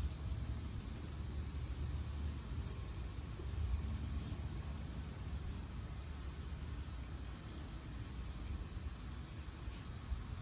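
Crickets chirping in a steady, fast-pulsing high trill, over a low rumble.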